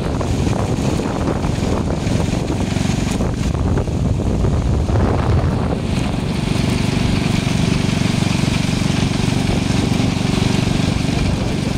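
Wind rushing over the microphone of a moving motorbike, with engine and road noise underneath; a higher hiss joins about halfway through.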